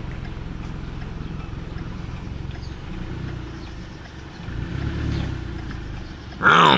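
Car driving, heard from inside the cabin: a steady low engine and road rumble that swells briefly about five seconds in. Near the end comes a short, loud pitched sound.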